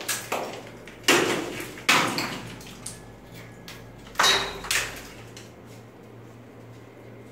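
Four hard knocks on concrete, each ringing briefly in a bare room, over a faint steady hum. They come from work on a spalled concrete ceiling slab with exposed rebar.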